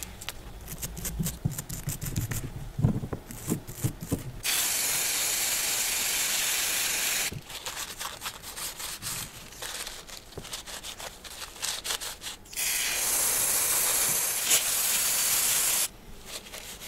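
Brake cleaner spraying from an aerosol can in two long, steady hissing bursts of about three seconds each, used to clean a starter-motor armature. Between and before the bursts come small clicks and rubbing as the armature is handled and wiped with a cloth.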